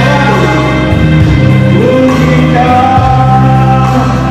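A man singing into a microphone over live electronic keyboard accompaniment, gliding up into a long held note about halfway through.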